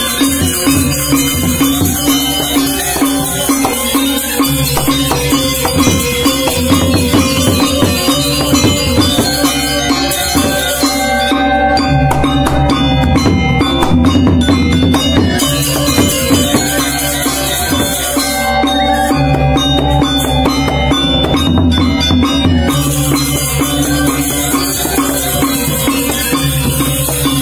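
Balinese gamelan gong ensemble playing: bronze metallophones ringing over drums and a clashing cymbal rhythm. The high cymbal shimmer drops out twice for a few seconds mid-way.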